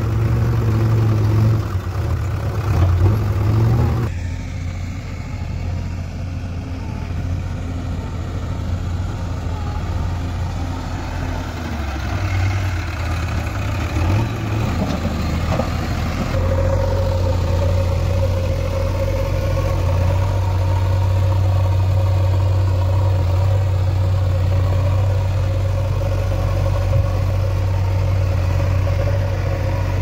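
JCB 3DX backhoe loader's diesel engine running steadily under load as the front loader bucket pushes and levels soil. The engine note changes abruptly about four seconds in and again about halfway through, then holds steady.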